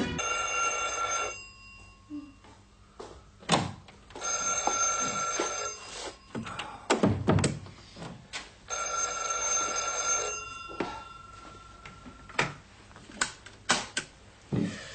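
Telephone bell ringing three times, each ring about a second and a half long with pauses of about three seconds between, with a few sharp knocks between rings and several clicks near the end.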